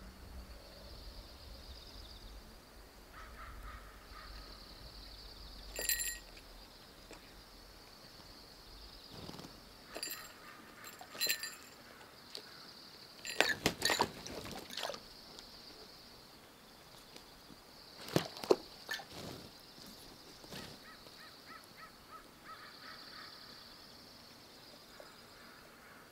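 Falcon bathing in a shallow bath pan: bursts of splashing and wing-flapping in the water, loudest about halfway through and again about two-thirds through, with smaller splashes between.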